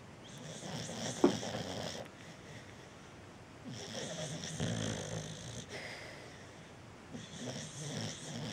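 Cocker spaniel snoring in its sleep: three long snoring breaths about three and a half seconds apart, each a hiss over a low rattle, with a sharp click during the first one.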